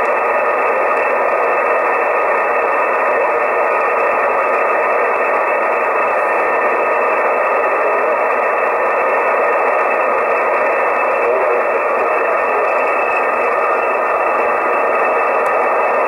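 Shortwave band noise from a Soft66RTL2 software-defined radio receiving the 20-metre amateur band in upper sideband with no voice on frequency: a steady hiss, cut off sharply above about 2.7 kHz by the sideband filter.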